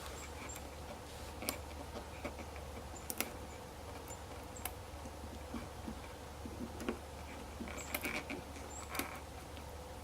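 Faint, scattered small clicks and taps from handling the new RV side camera as it is lined up with the existing screw holes and pressed onto the wall, over a steady low hum.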